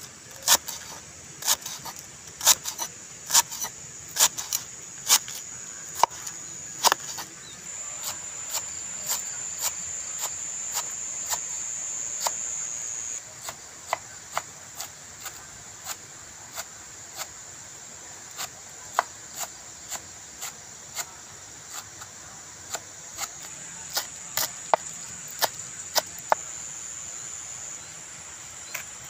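Large kitchen knife chopping on a wooden cutting board as turmeric leaves are sliced: a run of sharp knocks, sometimes about two a second, sometimes slower. A steady high-pitched insect drone runs behind.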